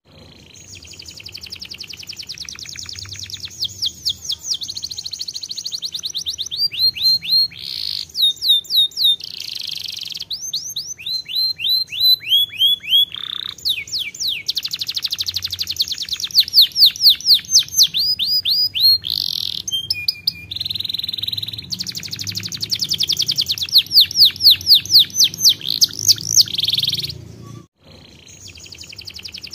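Domestic canary singing a long, continuous song: fast trills alternating with slower runs of loud repeated notes. The song stops briefly near the end, then starts again.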